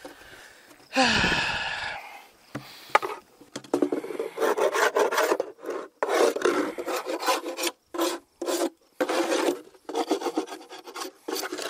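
A metal hive tool scraping a wooden hive part in a run of quick, rasping strokes, about two a second. About a second in there is one longer grating scrape that falls in pitch.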